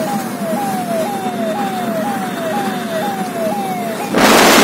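Inside a moving car's cabin, an electronic tone repeats about twice a second, each one a short glide falling in pitch, over steady road noise. Near the end, a loud burst of rushing wind noise covers it.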